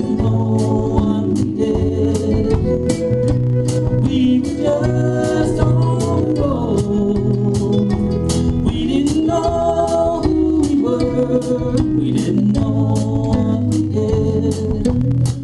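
Live acoustic band playing a country-folk song: several strummed acoustic guitars keeping a steady beat, with bass, a melody line and group voices singing over them.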